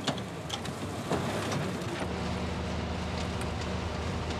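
Truck engine running steadily, a low drone heard from inside the cab, with a few light clicks in the first second or so.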